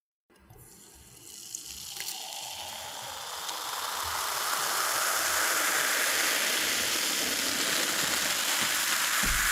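Cola being poured, a steady stream of liquid with the hiss of fizzing carbonation, starting softly and building over the first few seconds. There is one small click about two seconds in.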